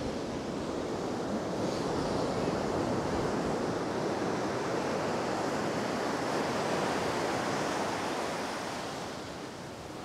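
Ocean surf washing onto a rocky shore, swelling over the first few seconds and fading away near the end.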